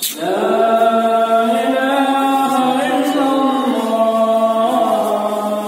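A single voice chanting Islamic recitation, holding long notes that bend and turn slowly in pitch, starting abruptly at the beginning.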